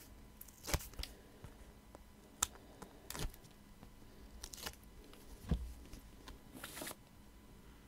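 Card stock being handled on a cutting mat: scattered light taps and clicks, about half a dozen, as a card circle with foam pads is turned and positioned, with a short papery rustle near the end.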